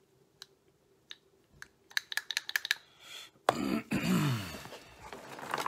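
Small parts and tools handled on a workbench: a quick run of sharp plastic-and-metal clicks, then about three and a half seconds in a louder rubbing creak that falls in pitch as things are moved across the bench.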